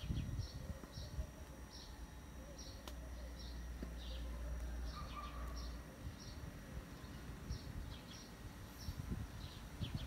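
A small bird chirping over and over, short high notes about twice a second, over a low rumble.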